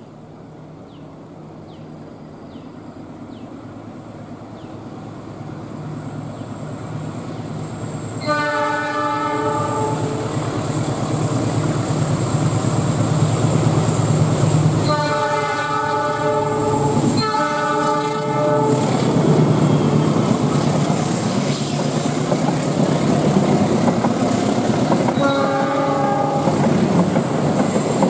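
A CC 206 diesel-electric locomotive approaches around a curve, its engine growing louder, and sounds its horn four times: one blast about eight seconds in, two close together in the middle, and one more near the end. The passenger coaches then run past with wheels clacking over the rail joints.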